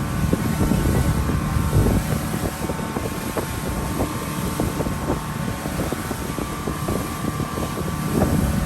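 Speedboat under way at speed: the engine runs with a steady rumble and faint whine, with frequent short knocks and wind on the microphone.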